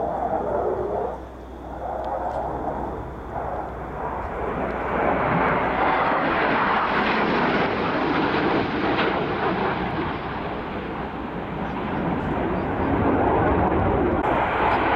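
Jet engine roar from F-16 fighter jets flying over in formation. It swells a few seconds in and stays loud and steady.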